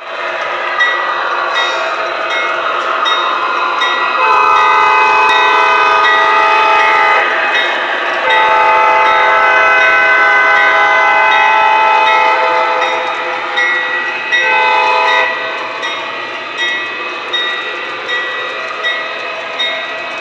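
Model freight train running on its track: its sound system blows the horn in two long blasts and one short one over a steady running rumble, and the wheels click rhythmically over the rail joints as the cars roll past.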